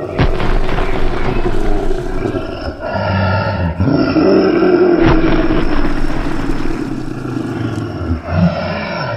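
A fictional creature's voice: loud, drawn-out roaring calls that run into one another, with changes in the call about three and four seconds in and again near the end.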